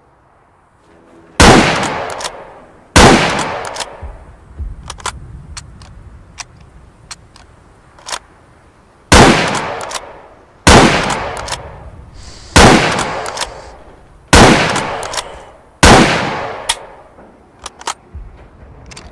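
Type 37 sniper rifle firing seven single shots, each with a long echoing tail: two in quick succession, a pause of about six seconds filled with light clicks, then five more at a steady pace of one every second and a half to two seconds.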